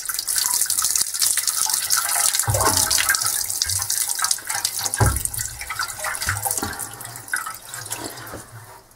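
Tap water running over hands into a utility sink, a steady splashing hiss that fades out near the end. A couple of dull thumps sound about two and a half and five seconds in.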